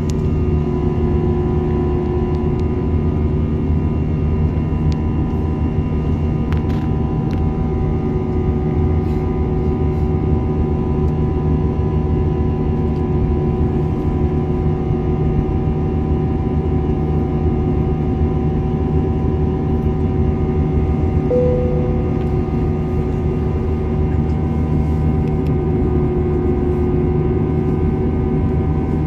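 Airliner cabin noise in flight: a steady low rumble and rush of air with several steady humming tones on top.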